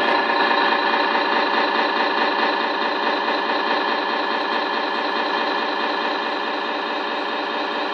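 Simulated diesel engine idling from the Tamiya Scania RC tow truck's onboard sound unit, played through a small speaker as a steady, even, fast pulsing.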